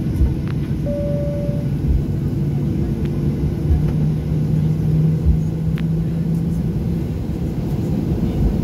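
Cabin rumble of a Boeing 737's jet engines heard from a window seat over the wing, with a steady hum that rises slightly in pitch as the plane taxis onto the runway. A few low thumps and a short beep about a second in.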